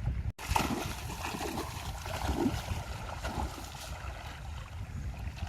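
Water splashing and sloshing around a small boat at sea, over a steady low rumble. The sound drops out for an instant shortly after the start.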